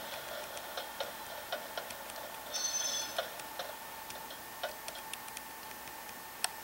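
Soundtraxx Tsunami Soundcar decoder playing simulated wheel clickety-clack through the freight car's small speaker, the clicks spacing out as the car's throttle is wound down. A brief high flange squeal sounds about two and a half seconds in.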